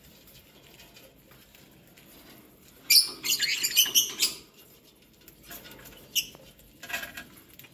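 A flock of lovebirds giving short, high-pitched chattering calls: a dense burst lasting about a second, about three seconds in, then single calls near six and seven seconds.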